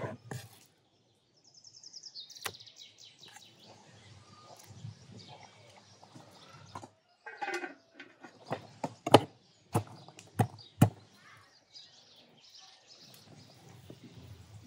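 Birds chirping outdoors, with handling noises and a run of sharp knocks, the loudest about nine to eleven seconds in.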